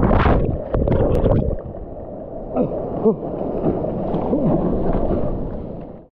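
Ocean surf churning around a submerged action camera: a loud rush of water for the first second and a half, then quieter sloshing with a few short wordless voice sounds, fading out near the end.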